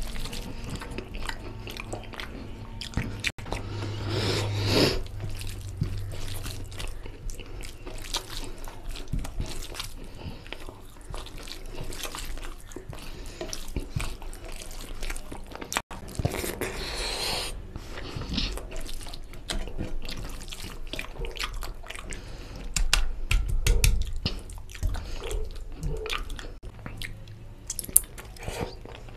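Eating by hand: wet squelching and clicking as fingers mix rice into oily chicken and egg curry on a plate, with chewing, and a few louder stretches of noise.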